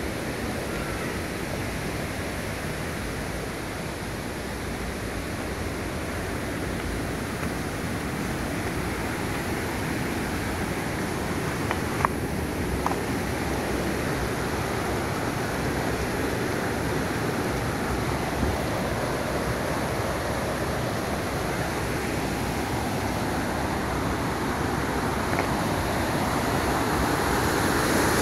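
Steady rushing of a mountain stream and waterfall, slowly growing louder toward the end. A couple of faint clicks midway.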